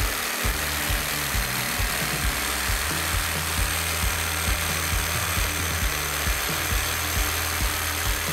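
NRT-PRO JV65DC 20 V cordless jigsaw cutting hard ulin (Borneo ironwood) decking with a Bosch blade, pendulum action off, the saw running steadily through the cut. Background music with a regular low beat plays over it.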